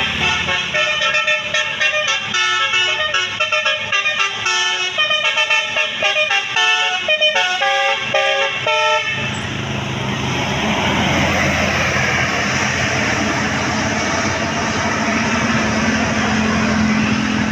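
A tour bus's multi-tone 'telolet basuri' musical horn plays a fast tune of short, changing notes for about nine seconds. It then stops, leaving a steady rushing noise with a low hum.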